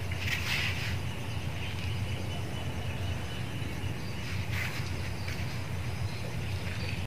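Steady low rumble of outdoor background noise, with two faint brief swishes, one shortly after the start and one about two-thirds of the way through.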